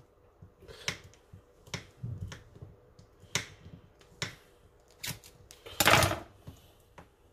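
Kitchen knife cutting slices off a block of cheese, the blade knocking on the countertop at the end of each cut, about once a second. A louder, longer clatter about six seconds in as the knife is set down on the counter.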